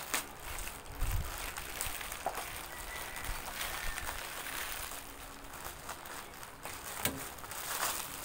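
Plastic courier mailer bag crinkling and tearing as it is pulled open by hand: irregular crackles and rustles, with a couple of dull knocks.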